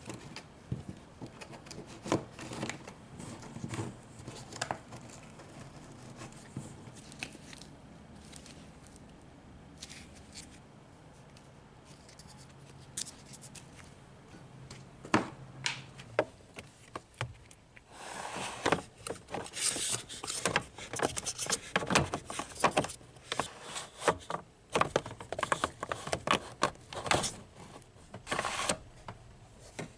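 Hand-handling noises: scattered sharp clicks, knocks and scrapes, over a faint low hum in the first half. Then, from a little past the middle until near the end, a dense run of rustling, crackling and clicking.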